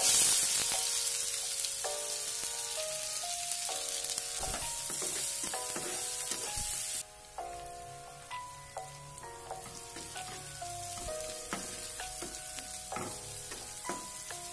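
Chopped onions hitting hot oil with cumin seeds in a frying pan, setting off a loud sizzle at once. The sizzle cuts off suddenly about seven seconds in, then goes on more quietly with the clicks and scrapes of a metal spatula stirring. Background music plays throughout.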